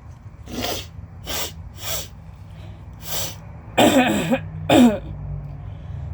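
A woman coughing with allergies: four short breathy huffs, then two loud coughs about four and five seconds in.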